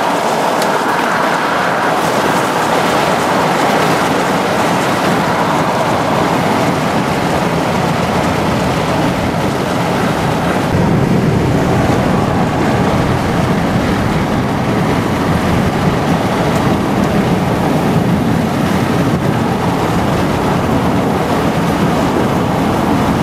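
Steady rushing of wind noise, joined about eleven seconds in by a deeper rumble of a car driving, tyre and road noise heard from inside the cabin.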